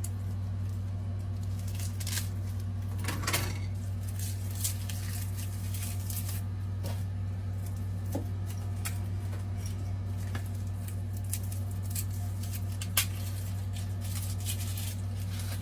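Scattered small clicks and brief rustles of hands handling a garlic bulb and its papery skin, over a steady low hum.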